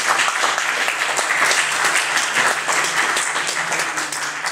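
Audience applauding, many hands clapping together in a steady crackle.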